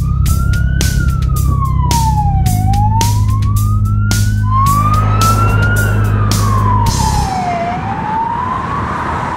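An emergency-vehicle siren on a slow wail, gliding up and down about every three to four seconds, over loud music with sharp drum hits and a steady low bass line. The music cuts off about seven seconds in and the siren wails on alone.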